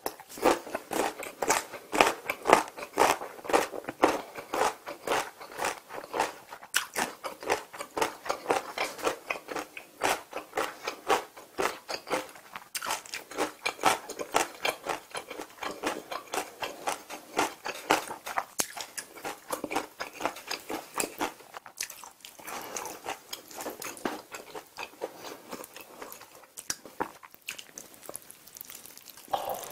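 Close-miked chewing and crunching of sauced fried chicken, in irregular crunches several times a second. It is busier and louder for the first twenty seconds or so, then becomes softer chewing, with a fresh bite near the end.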